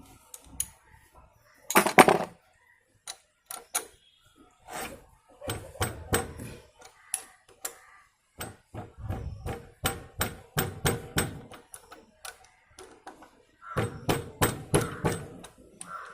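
Irregular metal clinks and knocks of hand tools and parts being handled on the motorcycle's clutch-side engine cover, some with a short metallic ring.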